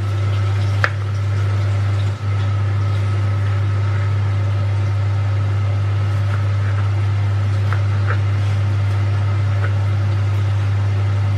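Steady low kitchen hum, with a few light knife clicks on a plastic cutting board as a tomato is diced.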